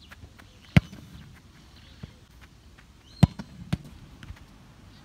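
Football struck hard with a boot about a second in, a single sharp thud. Two more loud ball thuds follow about half a second apart a little past three seconds in, with fainter knocks between.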